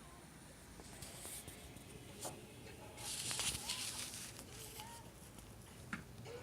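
Quiet room with a few light clicks and a short burst of rustling about three seconds in.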